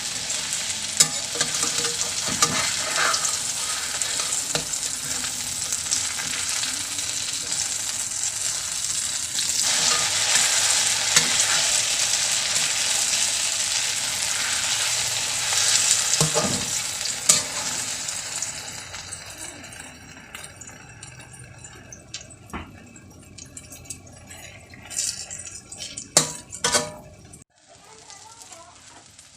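Eggplant omelet (tortang talong) frying in hot oil in a pan: a steady sizzle that is loud for most of the first two-thirds and then dies down. A few sharp clicks of a utensil against the pan come near the end.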